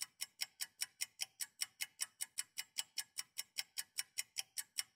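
Rapid, perfectly even clock-like ticking, about five ticks a second, with dead silence between the ticks. It is a ticking sound effect laid over the footage rather than room sound.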